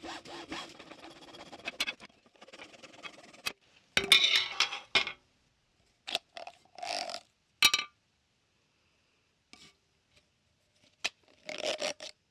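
Hacksaw cutting through corrugated plastic pool hose in quick back-and-forth strokes, which stop about two seconds in. Then come scattered clicks, scrapes and knocks as the cut plastic hose and its plastic nut are handled on a tile floor.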